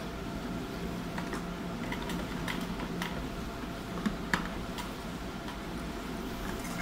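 An old black sewing machine worked slowly by hand, giving a few scattered light clicks and ticks from its mechanism as the stitched fabric is drawn out from under the presser foot, over a faint steady hum.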